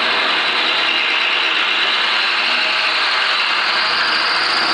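Electric drill running steadily under load, its bit boring into a stripped steel Allen-key fixing screw in a glass-door hinge plate to drill the screw out.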